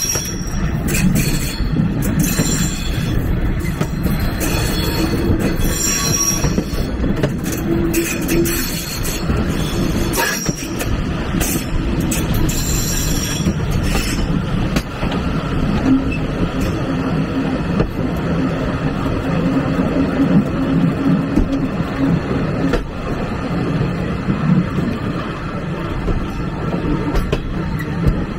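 Moving passenger train's steel wheels rolling and rumbling on the rails, with high-pitched wheel squeal coming and going through roughly the first half before fading to a steady rolling rumble.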